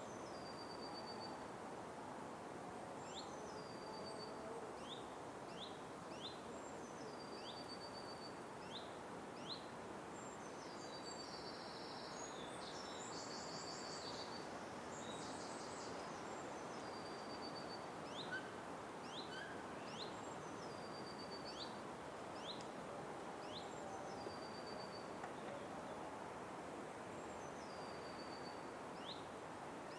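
Forest ambience: a steady hiss with small birds calling over it. Every few seconds a high falling note runs into a short trill, among scattered short rising chirps, with a denser buzzy burst of calls around the middle.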